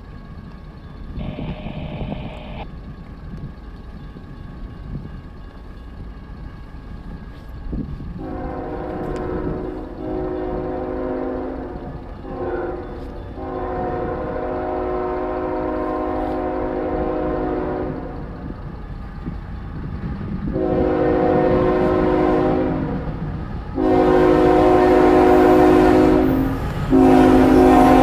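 Horn of an approaching CSX GE Tier 4 GEVO (ET44AH) diesel locomotive sounding a chord in about five long blasts, starting about eight seconds in and growing louder as the train nears. A low diesel rumble runs under it.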